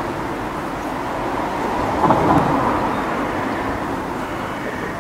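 Steady outdoor street noise with a vehicle passing, swelling to its loudest about two seconds in and then fading.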